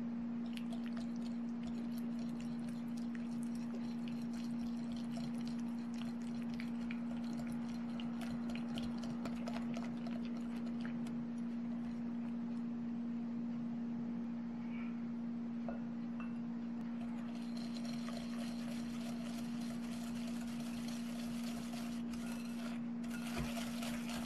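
Wire balloon whisk beating softened butter in a glass bowl: quick light clicks of the wires against the glass, over a steady low hum. From about two-thirds of the way through, a grittier, hissier scraping as sugar is whisked into the butter.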